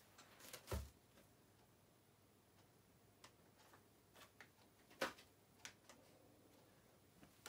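A few scattered clicks and knocks of small packaged items being handled and set down on a tabletop. The loudest is a dull thump just under a second in and a sharp knock about five seconds in, with faint room tone between.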